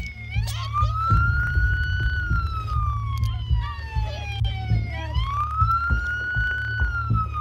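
Police siren wailing: the tone rises quickly, holds, then slowly falls, and the cycle starts again about five seconds in. A steady low rumble lies under it, with scattered short clicks close by.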